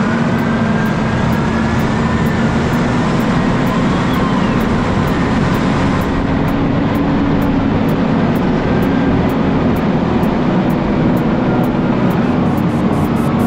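Case IH Magnum 250 tractor's six-cylinder diesel engine running steadily while the tractor drives along, with a steady hum and a fainter whine above it.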